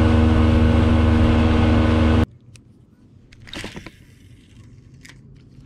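Motorboat engine running at speed, with rushing water and wind noise over a steady engine drone; it cuts off suddenly about two seconds in. After that only a few faint knocks.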